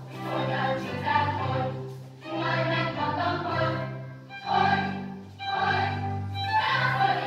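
Choral music with orchestra playing, in phrases of one to two seconds with short breaks between them.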